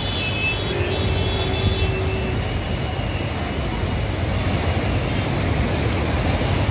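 Flood water of the Mahanadi rushing through the open gates of a river barrage: a steady, heavy rush of water, strongest at the low end.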